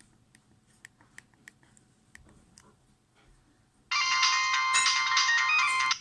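A Nokia 6103 mobile phone plays a polyphonic ringtone loudly through its speaker, starting suddenly near the end and cut off after about two seconds. Before it there are only a few faint clicks.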